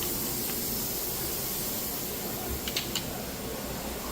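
Steady air hiss of machine-shop background noise, with a few light clicks about two and a half to three seconds in.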